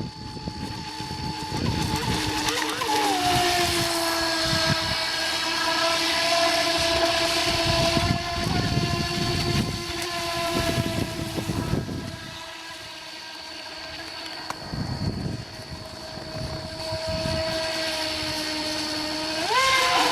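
Brushless electric motor of a Feilun FT011 RC racing boat running on the water: a high whine that rises in pitch about three seconds in, holds, falls lower around the middle, and rises again near the end as the throttle changes.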